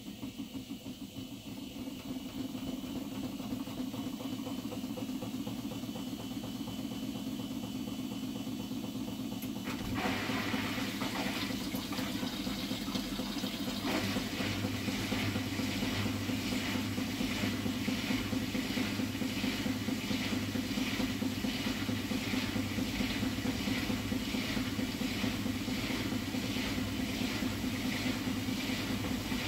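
Hotpoint front-loading washing machine on its final spin, with water rushing and the drum motor running. It steps up in level about ten seconds in and settles into an even rhythmic pulsing as the drum speeds up.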